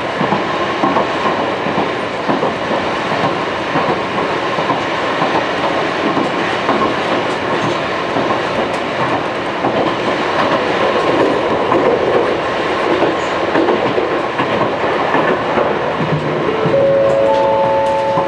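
Wakayama Electric Railway 2270 series train running along the line, heard from inside the passenger car: a steady rumble of wheels on rail with clickety-clack over the rail joints. Near the end a few steady tones at different pitches come in one after another.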